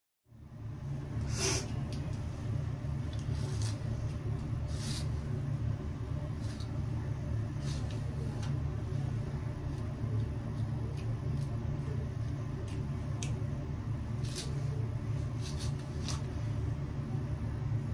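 Steady low rumble of a car cabin on the move, with a few short faint clicks and ticks.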